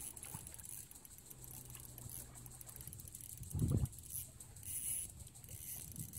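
Fishing reel being wound in while a fish is played on the rod, a faint rapid ticking. A dull low thump about three and a half seconds in.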